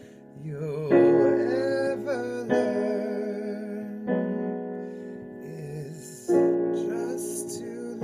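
A man singing a slow ballad with vibrato over a piano accompaniment. Piano chords are struck about four times and ring out under two sung phrases.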